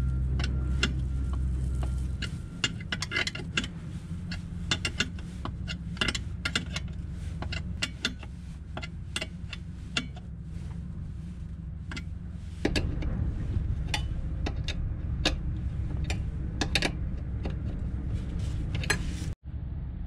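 Irregular sharp metal clicks and clinks of a small wrench tightening a brass fitting on an air-horn compressor tank, over a low steady rumble that gets louder about two thirds of the way through.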